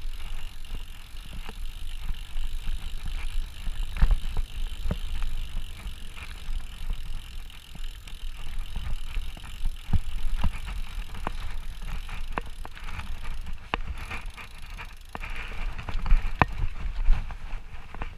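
Mountain bike riding down a rough dirt trail: a steady low rumble of the tyres on the ground, with frequent sharp knocks and rattles from the bike jolting over bumps and roots.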